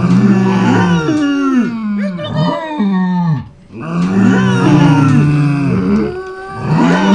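A farm animal giving long, loud, drawn-out calls, three in a row with short breaks between them.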